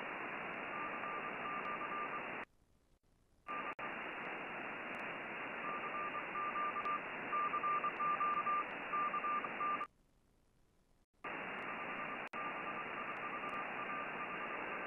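Shortwave receiver audio on the 15-metre band: steady band hiss with a weak Morse code (CW) signal keyed on and off as a single mid-pitched tone. The audio drops out abruptly twice for about a second before the hiss returns.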